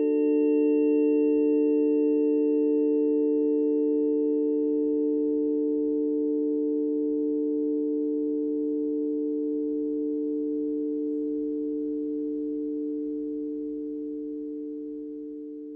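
A harmony of steady pure tones, tuned to Saturn, Jupiter and the North Node, sounding together as a held chord. The higher overtones die away within the first few seconds, and the whole chord slowly fades.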